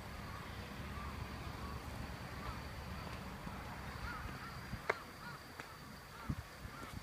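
Quiet outdoor ambience: a steady low rumble with faint small chirps recurring about once a second, and two or three sharp clicks near the end.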